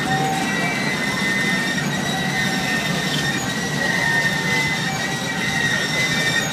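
Freight cars of a train rolling slowly past with a steady rumble and a thin, high wheel squeal that wavers in pitch.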